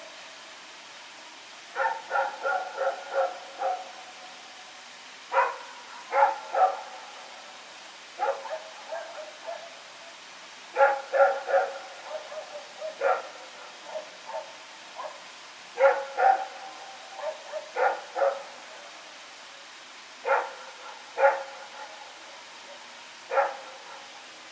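Belgian Malinois barking in repeated bouts of a few quick barks, with pauses of a second or two between bouts.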